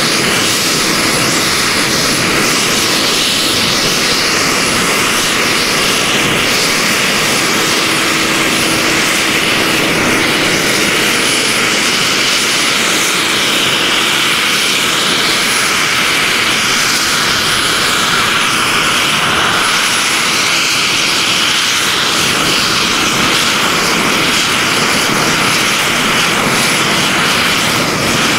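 Radio-controlled scale model Kamov Ka-52 Alligator helicopter running, its motor and counter-rotating coaxial rotors making a steady, loud, high rushing whir as it lifts off and hovers.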